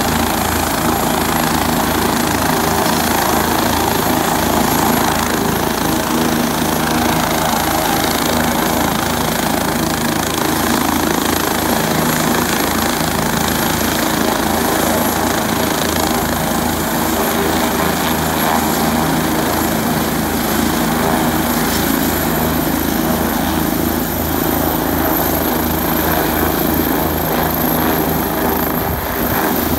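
Air ambulance helicopter running on the pad with its rotor turning: a steady, even beat from the rotor under a high turbine whine. Near the end the whine creeps up in pitch as the engines spool up for lift-off.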